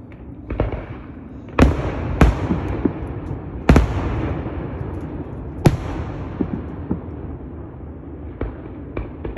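Aerial firework shells bursting in a string of sharp bangs, four loud ones in the first six seconds and smaller pops after, with a rumbling echo between the bangs.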